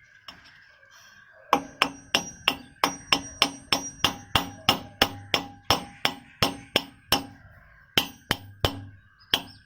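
Hammer striking metal in steady quick taps, about three a second, each with a short metallic ring, pausing briefly a little after halfway: a new ball bearing being driven into place in a ceiling fan motor.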